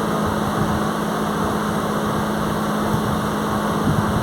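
A machine running with a steady hum: one low, constant tone under an even rushing noise, with no change in pace or pitch.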